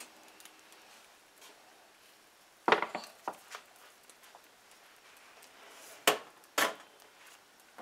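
Bakeware being handled: a metal bundt pan in its water-bath baking dish knocking and clinking as it is moved and set down on a stovetop. A quick cluster of knocks comes about a third of the way in, then two sharper knocks near the end.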